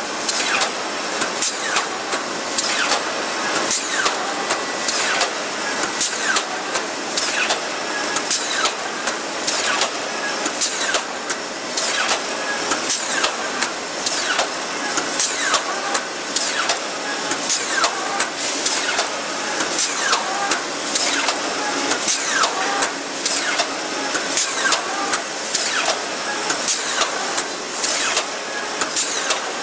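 Steel bars clattering on a rolling mill's notched cooling bed as its mechanism steps them across: frequent sharp metallic clanks and knocks, several a second and irregular, over a steady mechanical din.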